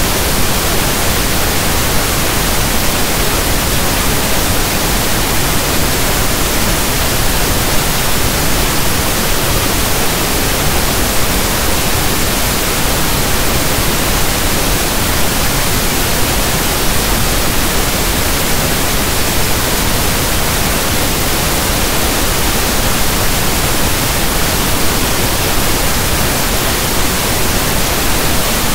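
Steady synthesised pink noise, a soft static like a radio not tuned to a station, with no change in level or character.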